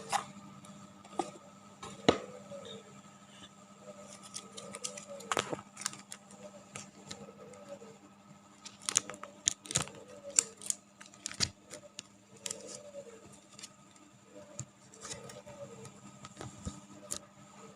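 Scattered light clicks and taps of small objects being handled, with a few sharper knocks, over a steady electrical hum.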